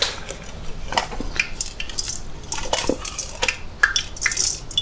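Scattered metallic clicks and clinks of utensils against a steel plow-disc pan, over the steady sizzle of fish frying in hot oil.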